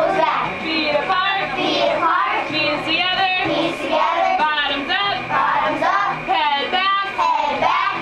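A group of children singing a song together, with women's voices joining in over backing music.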